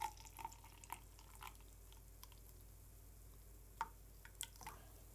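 Fruit juice poured from a juicer's jug into a drinking glass: faint drips and small splashes, a few separate ones in the first second and a half and a couple more near the end.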